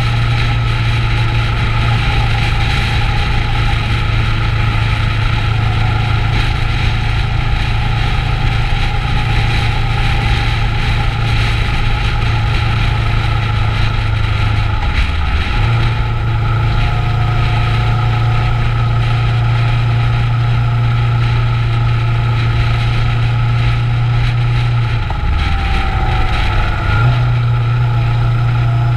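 Kawasaki Ninja 650's parallel-twin engine running steadily as the motorcycle rides along. The engine note briefly drops about halfway through and again near the end.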